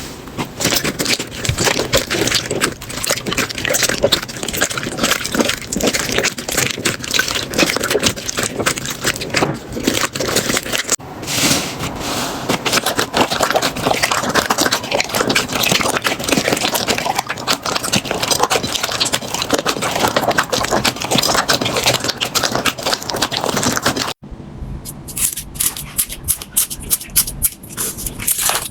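Slime being squeezed and pressed by hand, a dense run of wet crackling and popping clicks. It cuts off sharply about 24 seconds in, and a crisper, sharper crackling of another slime follows.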